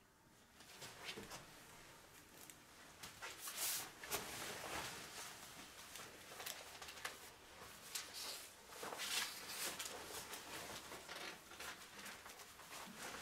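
Faint rustling and handling noise of a sheet of paper and a leather jacket being taken off and hung on a coat stand, with scattered soft clicks and scrapes.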